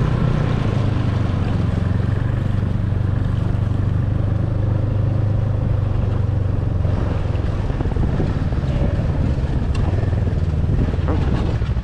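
Snowmobile engine running steadily, heard close up from the rider's seat as the machine rides along the trail and slows to a stop. The higher hum eases off about seven seconds in, and a few light clicks come near the end.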